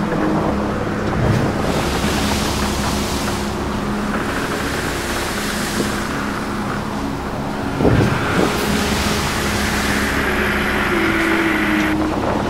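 Wind buffeting the microphone over a steady low hum, with a brief thump about eight seconds in.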